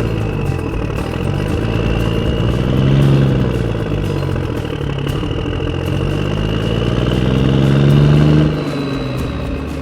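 Radio-controlled excavator running while it works, its motor note rising and falling in pitch twice, loudest about three and eight seconds in, over a steady high whine.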